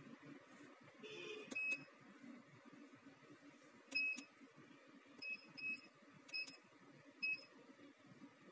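Keypad of an MT-2704 double-beam UV-Vis spectrophotometer beeping as its keys are pressed to enter a standard's concentration: about six short, high beeps at uneven intervals, the first about a second and a half in, the last about seven seconds in.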